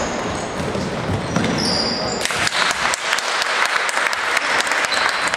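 Live women's basketball play on a hardwood sports-hall court: the ball bouncing, players' footfalls and brief high sneaker squeaks.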